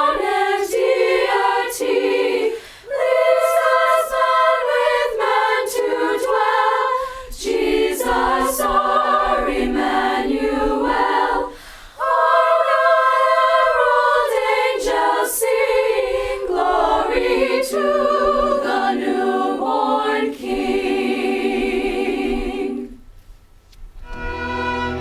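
Choir singing a Christmas carol unaccompanied, in phrases with short breaths between them. The singing ends about two seconds before the close, and a bowed string ensemble begins right at the end.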